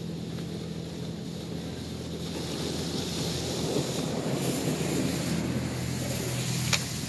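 Car-wash water spray washing over a car's roof and rear window, heard from inside the cabin with a steady low hum under it. The spray gets a little louder partway through, and a sharp click comes near the end.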